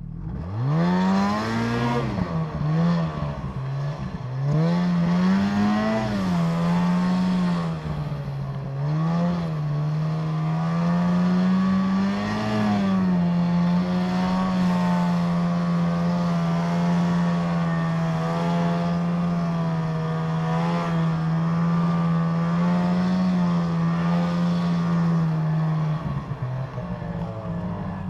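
Ski-Doo snowmobile engine revving, its pitch rising and falling with the throttle over the first dozen seconds, then holding a steady high pitch at speed before easing off near the end.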